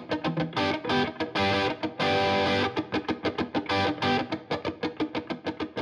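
Background music led by a guitar playing fast repeated notes, with one held chord about two seconds in.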